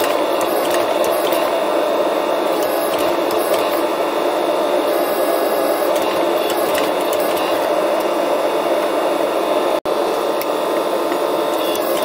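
Forging press running steadily as it squeezes a red-hot damascus steel billet between flat dies, with faint irregular ticks; the sound cuts out for an instant about ten seconds in.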